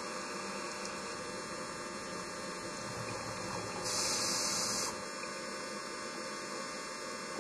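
Steady electrical hum and hiss from an underwater video camera's own recording noise, with no other sound. About four seconds in, a louder high hiss lasts about a second.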